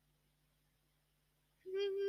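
Near silence, then near the end a short, steady-pitched voiced call that drops in pitch as it ends.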